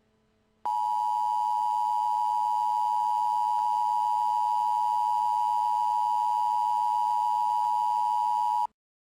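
Emergency alert attention tone: a single steady electronic tone pitched near 1 kHz. It starts sharply under a second in, holds level for about eight seconds and cuts off abruptly. It signals that a severe-weather warning message is about to be read.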